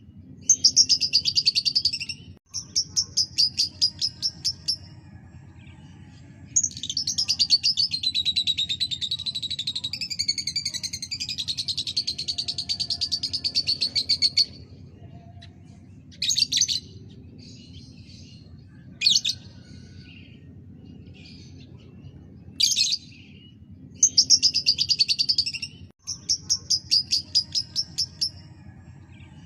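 Lovebird singing in rapid, high-pitched chattering trills: several bursts of one to two seconds, one long unbroken run of about eight seconds, and short chirps in between, over a steady low background hum.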